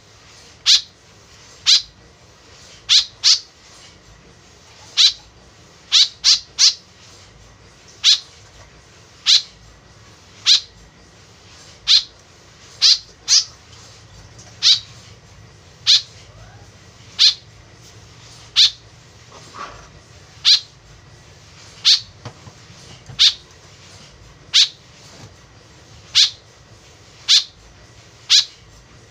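White-breasted woodswallow calling: short, sharp, high-pitched notes repeated about once a second, now and then two in quick succession.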